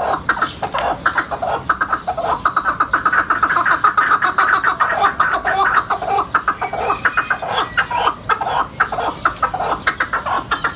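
Two chukar partridges calling together: a long series of rapid, repeated clucking notes, several a second, without a break.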